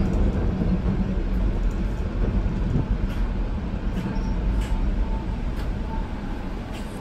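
Train running on rails: a steady low rumble with a few faint clicks, easing slightly toward the end.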